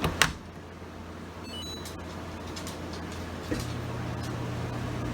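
Samsung dishwasher starting a cycle: a sharp click just after the start, then about three and a half seconds in another click and a steady low hum sets in as the machine starts running. An air conditioner hums underneath.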